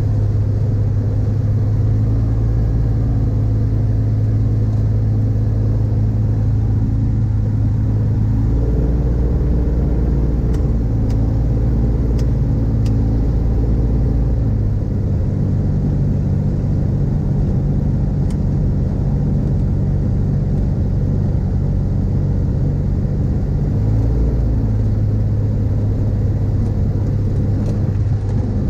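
Rotax 582 two-stroke engine of an X-Air microlight running at low ground power while taxiing on grass. Its pitch shifts a few times as the throttle is moved, about a third of the way in, halfway through and again near the end.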